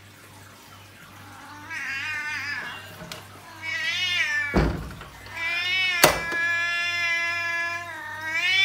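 Siamese cat meowing: four wavering meows, the third drawn out for over two seconds and the last starting near the end, with two sharp knocks in between.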